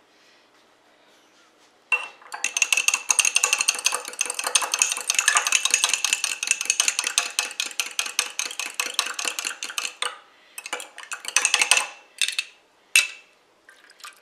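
A fork beating eggs in a glass jar, clinking quickly against the glass from about two seconds in until about ten seconds, then a few short spurts of beating.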